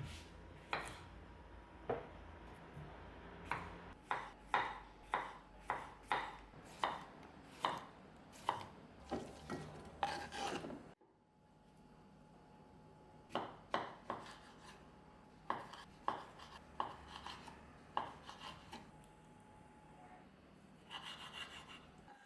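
Knife chopping food on a cutting board: a run of sharp chops, two or three a second, that breaks off suddenly about halfway, then a second run of chops.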